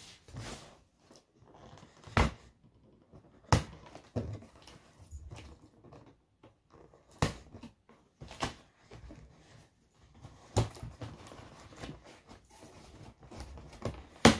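Cardboard shipping box being opened by hand: packing tape picked at and peeled off, with faint rustling and about six sharp knocks and taps of hands on the cardboard spread through.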